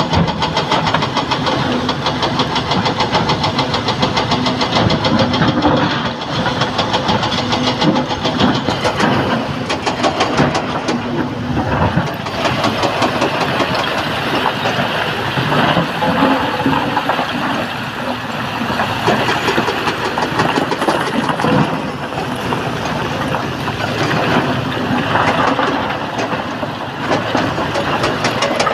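SANY SY225C hydraulic excavator's diesel engine working under load as it digs quarried rock and loads a dump truck. Irregular knocks and scraping of rock against the steel bucket and truck body run through it.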